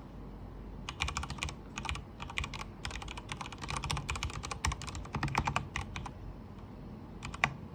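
Typing on a Durgod Fusion 65% mechanical keyboard with linear Cherry MX Red switches. A fast run of keystrokes starts about a second in and lasts about five seconds, followed by a short lull and a couple of final keypresses near the end.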